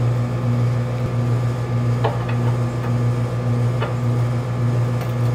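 A steady low machine hum runs throughout, with two light knocks of metal, about two seconds in and again near four seconds, as the chrome tube tiller handle is fitted to its mount on the mud motor.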